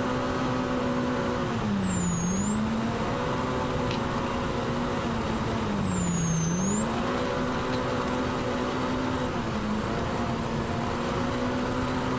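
Polaris RZR Pro R's 2.0-litre four-cylinder engine running hard at high speed, with a high whine that rises and falls with it. Its pitch dips briefly about two seconds and six seconds in, and a little again near the end, then picks back up. A steady rush of wind and dirt-road noise runs under it.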